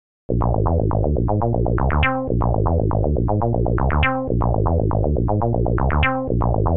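Background music: a quick run of short, quickly fading notes over a strong bass, starting abruptly just after the start and repeating a phrase about every two seconds.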